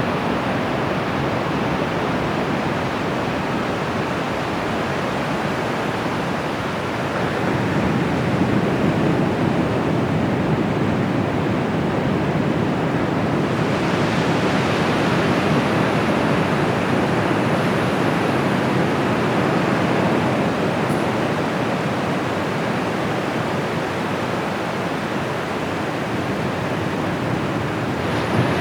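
Surf of the Bay of Bengal: a continuous wash of breaking waves on the beach, swelling a little louder about a third of the way in and brightening midway.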